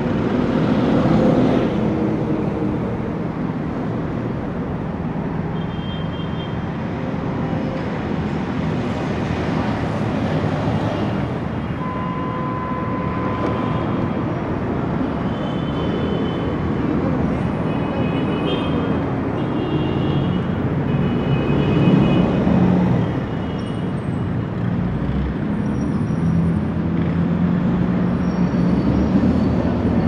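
Fairly heavy city street traffic: a steady flow of cars, buses and trucks passing, engine and tyre noise. A short held tone sounds for about two seconds around twelve seconds in, and brief high squeals come and go in the middle stretch.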